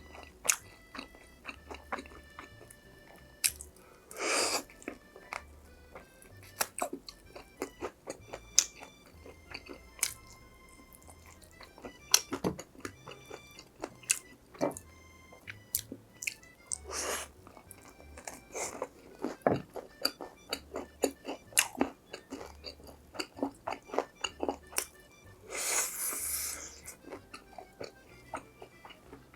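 Close-miked chewing and biting of crispy fried food, with frequent crunchy crackles and a few longer rushing sounds, over quiet background music.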